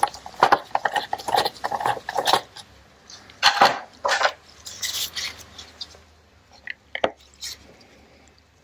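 Small metal carburettor parts and hand tools clinking, scraping and clicking in irregular bursts while the carburettor is taken apart on the bench, busiest in the first few seconds and thinning to a few scattered ticks near the end.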